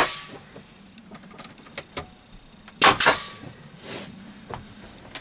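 Pneumatic brad nailer firing nails through vinyl plank panelling into a wall: one shot right at the start, then two quick shots about three seconds in. Each is a sharp crack followed by a short hiss of exhaust air, with a few fainter clicks between.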